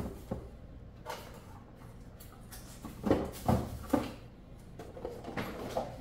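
Short clunks and knocks of grocery items being handled and set down in an open refrigerator, in a cluster about three seconds in and again near the end, over a faint steady low hum.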